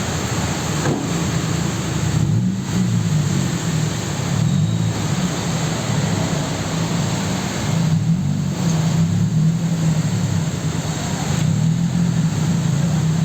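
A vehicle driving through heavy rain: a steady engine and road rumble under a constant wash of rain and wind noise.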